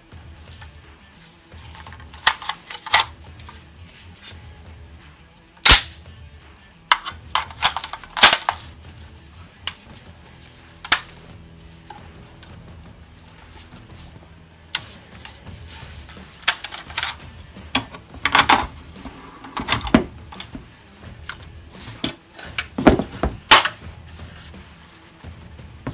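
CO2-powered 4.5 mm (.177) AR15-style air rifle shots: sharp pops fired singly and in quick runs of two or three, over background music.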